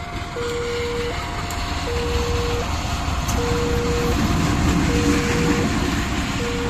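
Railway level-crossing warning alarm sounding its electronic two-note signal, a low note and a higher note alternating evenly, each held under a second. Under it, the engine of a CC 203 diesel-electric locomotive rumbles, swelling about halfway through as the light engine runs over the crossing.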